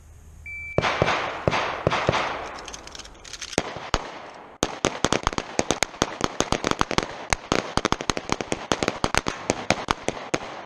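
A short high electronic start beep, then a line of shooters firing pistols: many overlapping, ragged shots with echo, coming several a second from different guns, with a brief lull about four seconds in before the shooting picks up again.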